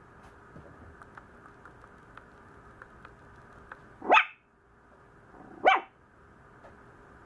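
Maltese puppy giving two short, high-pitched complaining barks, about four seconds in and again a second and a half later.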